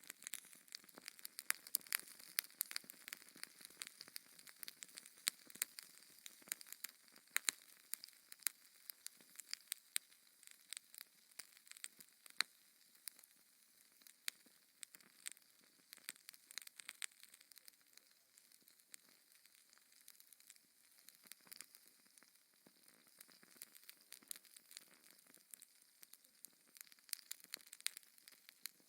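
Wood fire in a fireplace crackling, with frequent irregular sharp pops and snaps over a faint hiss.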